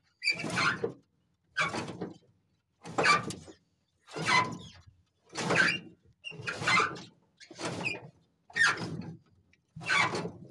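Cup-belt seed mechanism of a tractor-drawn potato planter running, its sound coming and going in an even rhythm about once a second, with silence between.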